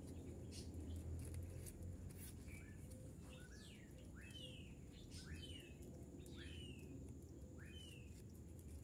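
Faint bird chirps in the background: a string of short, downward-sliding notes starting about two and a half seconds in, over a low steady background noise, with a few light clicks near the start.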